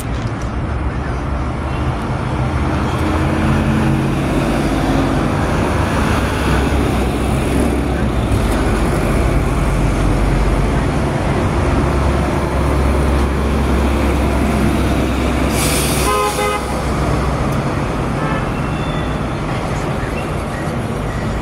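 Street traffic: a city bus and cars drive past with a steady engine and tyre rumble. A brief hiss with a short toot comes about sixteen seconds in.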